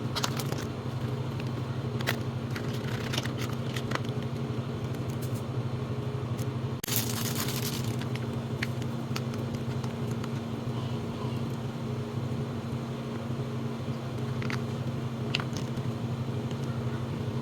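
A steady low hum runs under scattered light clicks, with one brief rustle about seven seconds in.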